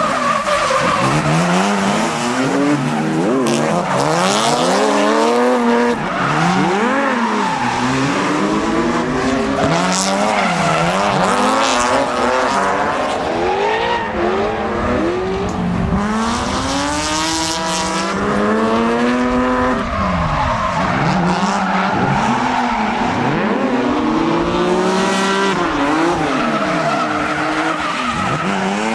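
Drift car engines revving hard, their pitch climbing and dropping every second or two as the throttle is worked through slides, with tyres squealing at intervals.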